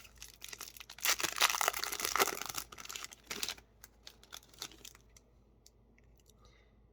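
A trading-card booster pack wrapper crinkling and being torn open: a dense run of tearing and crinkling starting about a second in and lasting a couple of seconds, then a few light clicks and rustles that die away.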